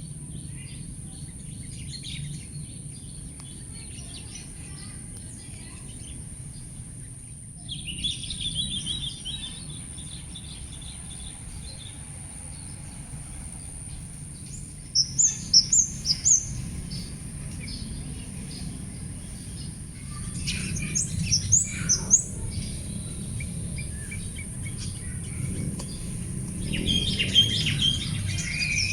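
Birds calling and chirping: a chatter, a quick run of four loud high notes, and further bursts of calls, over a steady low rumble and a thin constant high hiss.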